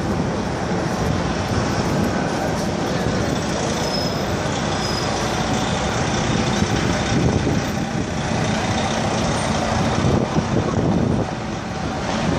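Busy city street traffic: cars, buses and trucks passing in a steady rumble, swelling for a few seconds and then dropping back slightly about eleven seconds in.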